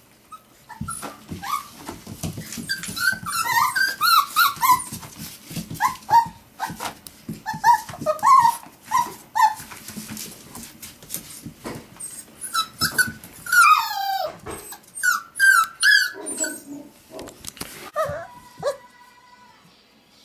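Six-week-old Pomsky puppies yipping, whining and growling as they play, with scuffling paws. About two thirds of the way through, one pup gives a longer cry that falls in pitch.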